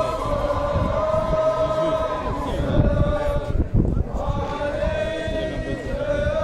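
A group of men chanting in unison: two long, held phrases with a short break about halfway through, over the noise of a crowd.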